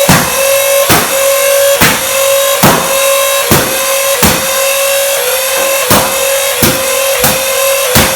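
Motorised Nerf blaster's flywheel motors whining steadily while darts are fired in quick succession, a sharp knock roughly once a second and a little faster near the end.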